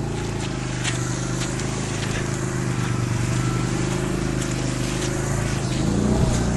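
CF Moto 500 4x4 ATV's single-cylinder engine running at a steady, even pace while riding, with a few sharp clicks.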